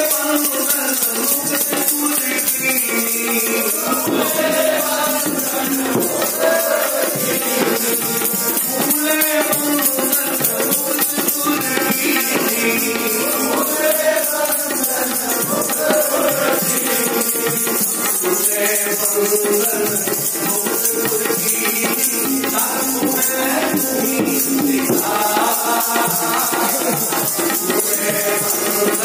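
Sikh kirtan: devotional hymn singing over a steady jingling percussion beat that keeps time.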